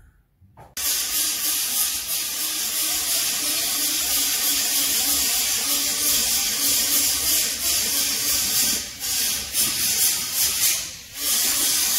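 Loud steady hiss, like rushing air or spray, starting just under a second in and briefly dropping away a few times near the end.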